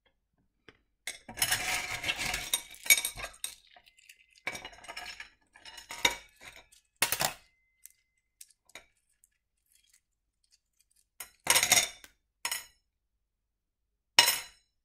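Pieces of rough opal clinking and rattling against one another and against a dish as they are picked up and handled, in a series of short bursts, the longest near the start.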